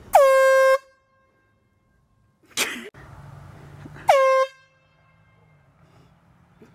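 Handheld air horn blasting twice: a loud blast of under a second whose pitch drops and settles into a steady blare, then a shorter one about four seconds in. A brief rushing noise comes between the two blasts.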